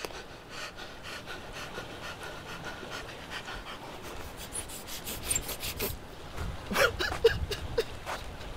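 A man sobbing in quick, ragged panting breaths, about four a second, breaking into a few louder, whimpering sobs about seven seconds in.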